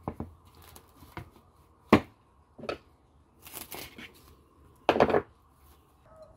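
Cling film being pulled off its roll and stretched over a plastic bowl: crinkling and crackling, with a few sharp taps (the loudest about two seconds in) and a longer tearing rasp about five seconds in as the film is cut.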